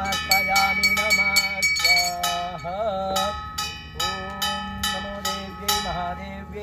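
Brass puja hand bell rung rapidly and continuously, several ringing strikes a second, with a wavering sung or played melody over it.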